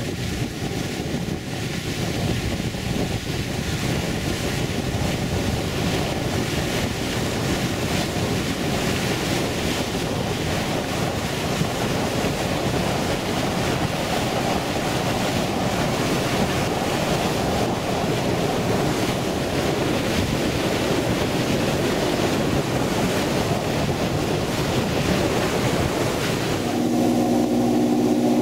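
Wind buffeting the microphone over the rush of sea water along a moving boat's hull. Near the end a steady engine hum joins in as white water churns beside the boat.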